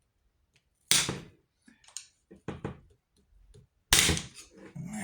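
Two sharp knocks about three seconds apart, with lighter clicks and taps between them, as crossbow parts are handled and set down during disassembly.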